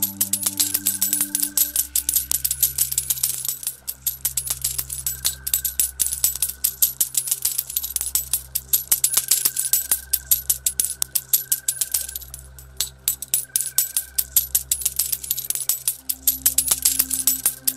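Calm synthesizer music with long held low chords and a slow high melody, layered with a continuous rapid clinking of coins showering down.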